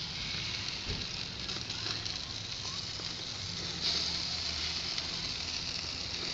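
Hamburger patties sizzling on a charcoal grill, with fat dripping onto the hot coals and flaring. A steady hiss with light crackles, growing louder about four seconds in.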